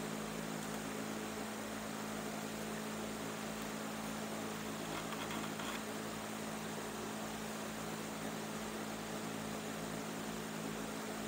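Steady electrical mains hum over a faint even hiss, with no change in level.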